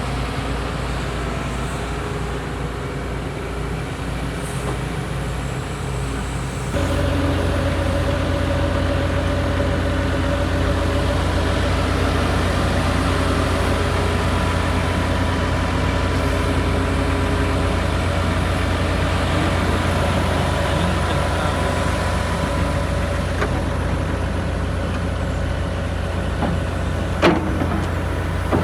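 Excavator engine running steadily, stepping up louder about seven seconds in as it is worked harder, with one brief sharp sound near the end.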